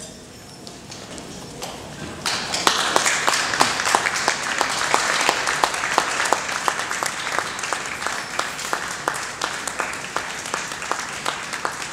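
An audience breaks into applause about two seconds in, dense clapping that carries on steadily.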